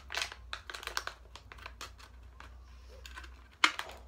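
Plastic biscuit wrapper and clear plastic tray crinkling and crackling in short, irregular clicks as biscuits are pulled out of the packet, with one sharper crackle about three and a half seconds in.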